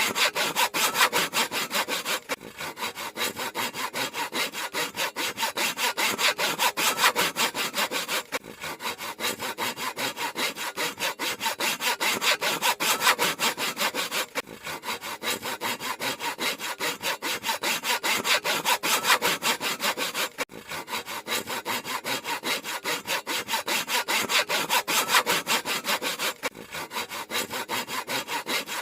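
Handsaw cutting through wood in quick, even strokes, the teeth rasping on each pass. A brief break comes about every six seconds.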